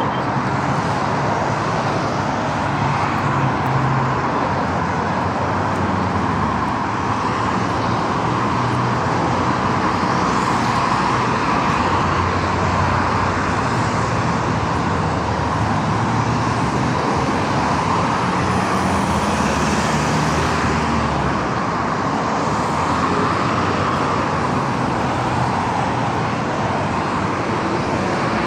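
Steady city road traffic: a continuous rush of tyres and engines from cars passing along a busy boulevard, with heavier engine sounds from passing vehicles now and then.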